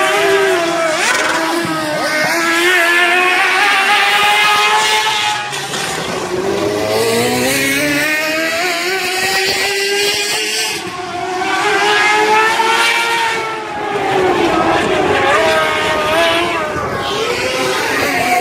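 Dirt late model race cars' V8 engines at speed on a dirt oval, the pitch climbing as they accelerate and falling away as they lift, over and over as the cars come by and go around, the sound swelling and fading with each pass.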